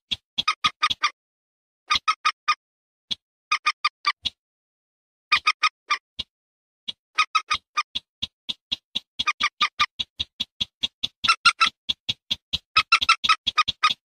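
Rail calls from a bird-lure recording of common moorhen and barred rail: loud, clipped notes repeated about six a second. In the first seven seconds they come in short bursts of a few notes with pauses between. After that they run on almost without a break.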